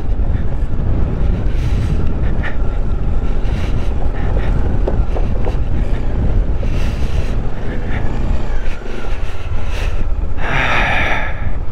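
Motorcycle riding slowly across a wooden-decked suspension bridge and onto a rocky track: engine and tyre noise under heavy wind rumble on the microphone, with a few light knocks and a brief louder noise near the end.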